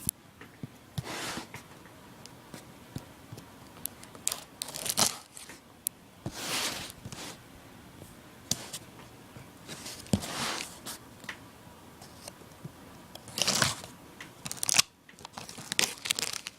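A knife slitting the packing tape on a cardboard shipping box, in several irregular rasping strokes, with cardboard and tape tearing and handling clicks between them.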